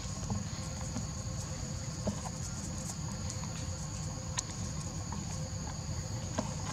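Insects buzzing in a steady high drone over a low rumble, with a few faint clicks scattered through.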